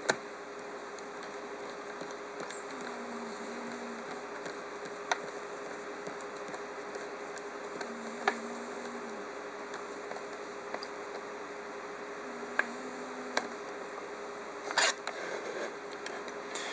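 Faint handling sounds of a wire being worked into a thermostat's plastic screw terminal block: scattered small clicks and scratches, with a louder rustle near the end, over a steady low hum.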